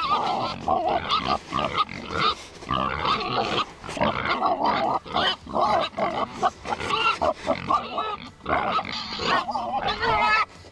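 A group of pigs grunting in quick short calls, one after another, as they run along close behind someone who has called them in.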